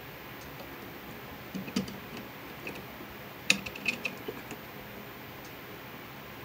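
Light metallic clicks and taps of a hand tool on wire and an electrical outlet's screw terminals while the wires are being fastened. There is a small cluster about two seconds in and a sharper, louder run of clicks around three and a half to four seconds, over a steady background hiss.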